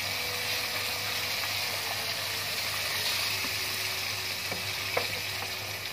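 Black-eyed beans in hot oily tomato masala sizzling in a pot just after water has been added, while a wooden spatula stirs them. The spatula gives a couple of light knocks against the pot near the end.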